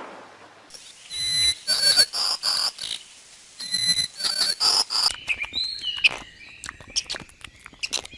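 A run of short, repeated animal calls, then, after a cut about five seconds in, bird chirps with quick falling whistles.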